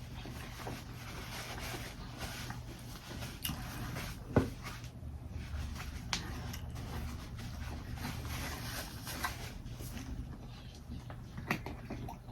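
Close-miked eating: chewing and mouth sounds, with a few sharp clicks and knocks, the loudest about four seconds in, over a low steady hum.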